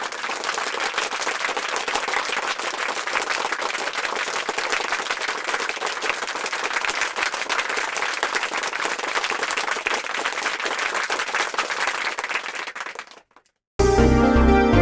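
Crowd applause: a dense patter of many hands clapping, steady for about twelve seconds, then fading out. Music starts just before the end.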